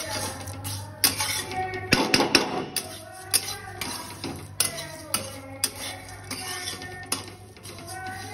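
Metal spatula scraping and clanking against a steel kadai while stirring a dry mixture, with irregular sharp clinks every half second or so.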